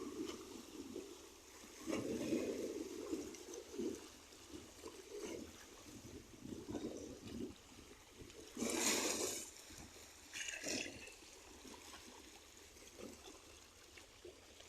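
Small waves lapping and sloshing in irregular surges, with one louder splash a little past halfway and a smaller one just after.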